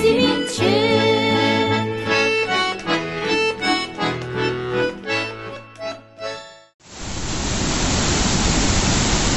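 Instrumental music with sustained chords over a bass line fades out over about seven seconds, then the sound cuts suddenly to the steady, even noise of a large waterfall.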